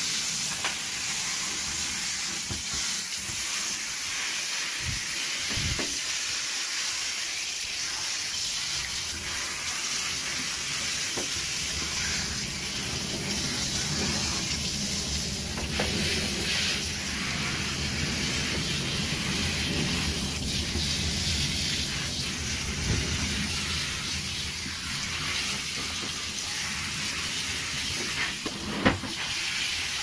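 Water spraying from a handheld shower head onto a top-loading washing machine's removed stainless steel wash tub and plastic tub base, a steady hiss and splatter as the grime is rinsed off. A short knock near the end.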